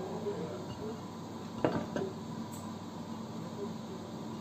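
Two sharp clinks of hard pieces against a ceramic plate as nuts are picked off it by hand, the first about one and a half seconds in and the second just after, over a steady low hum.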